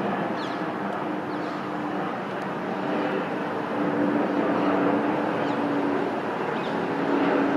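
Steady aircraft engine noise, with a low hum that fades in and out. Short, high, falling bird chirps come through now and then.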